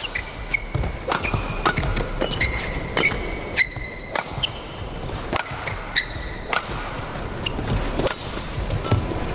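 Badminton rally: sharp racket strikes on the shuttlecock about once a second, with players' shoes squeaking on the court mat and thudding footfalls. Short high squeaks come near the start, around three seconds in and around six seconds in.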